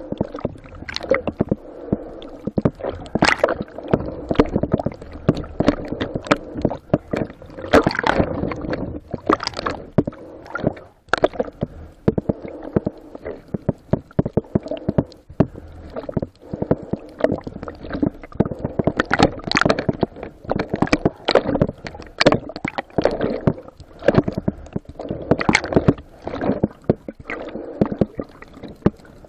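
Water sloshing and gurgling right at the microphone, with frequent irregular splashes.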